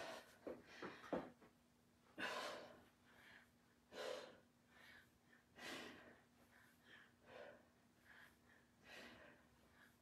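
Faint, sharp exhaled breaths of a person doing kettlebell swings, one about every second and a half to two seconds in time with the swings, with a few light clicks in the first second.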